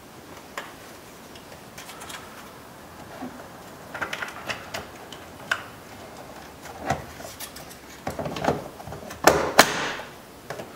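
2001 Toyota Sequoia plastic door trim panel being pressed onto the door, its clips snapping into place: a run of irregular clicks and knocks, with the loudest pair near the end.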